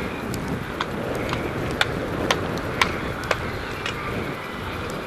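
Cyclocross bike ridden over a bumpy grass course, heard from a camera mounted on the bike: a steady rumble of tyres and wind on the microphone. Through the middle come sharp rattling clicks, about two a second.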